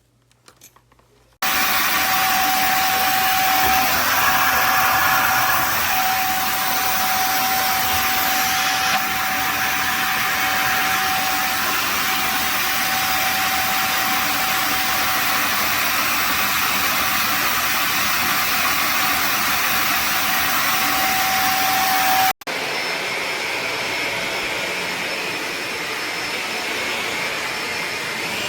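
Shark ZD201 upright vacuum cleaner switching on and running steadily, its motor noise carrying a steady high whine. About three-quarters of the way in the sound breaks off abruptly, then the vacuum keeps running slightly quieter without the whine.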